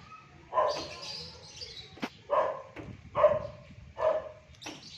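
An animal calling repeatedly, short calls about once a second, with a single sharp click about two seconds in.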